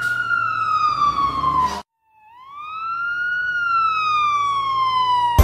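Siren wailing: one slow wail falling in pitch and cutting off abruptly, then after a brief gap a second wail that rises and slowly falls again.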